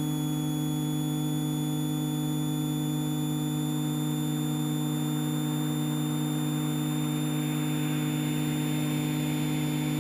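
Steady electrical hum on the aircraft's intercom audio: several constant tones, unchanging in pitch and loudness.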